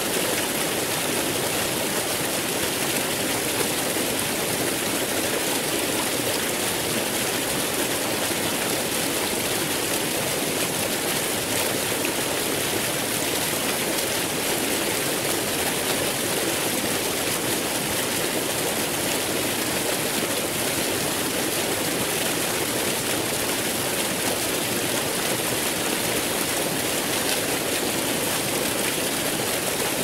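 Waterfall: a steady, even rush of falling water, unchanging throughout.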